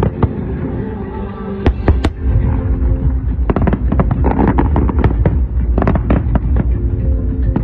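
Fireworks display: aerial shells bursting in a fast barrage of bangs over a low rumble. There are a few separate bangs at first, and they grow much denser about three and a half seconds in. Music plays underneath.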